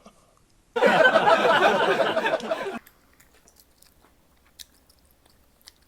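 Loud close-up chewing of a mouthful of food, wet and smacking, lasting about two seconds and then stopping, leaving only a few faint mouth clicks.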